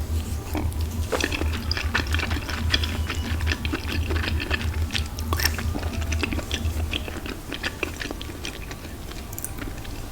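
Close-miked chewing and mouth sounds of someone eating: a dense run of wet clicks and smacks that thins out over the last couple of seconds, over a steady low hum.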